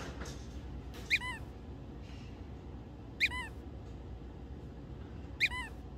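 A dog whimpering: three short, high whines about two seconds apart, each a quick rise and fall in pitch.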